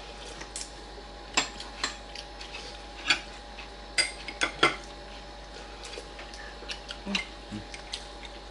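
Spoons and forks clinking and scraping against ceramic plates and soup bowls while eating, an irregular scatter of light clicks with a few sharper ones about a second and a half in, around three seconds in and between four and five seconds in.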